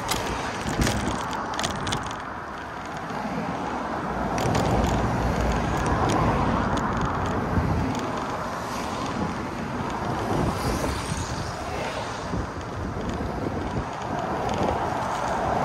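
Outdoor street ambience: wind buffeting the microphone over the hiss of road traffic, with a few light clicks near the start.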